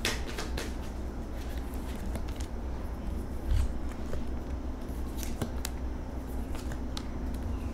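Tarot cards being handled and dealt onto a cloth-covered table: scattered light card snaps and taps, with one soft thump about halfway through, over a steady low hum.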